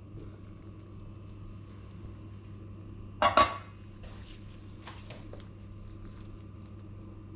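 A stainless steel pot lid set down on the countertop with a short ringing metal clatter about three seconds in, followed by a few light clinks of a spoon in a frying pan.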